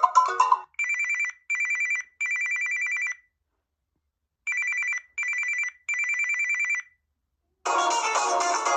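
Mobile phone ringtone imitating a trilling telephone bell, sounding twice as a group of three rings (short, short, longer) with a pause between. A melodic ringtone cuts off just before it begins, and a different, busier electronic tune starts near the end.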